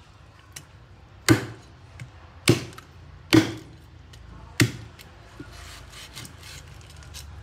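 A cleaver chopping through a rack of ribs on a thick wooden chopping block: four heavy chops about a second apart in the first half, then only a few faint knocks.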